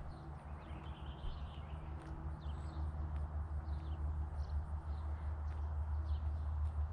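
Small birds chirping, short high calls scattered throughout, over a steady low hum.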